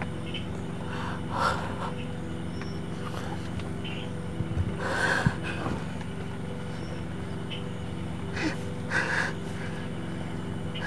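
A man groaning and gasping in pain from a gunshot wound, in three short bursts: about a second in, around five seconds, and near nine seconds. A steady low hum runs underneath.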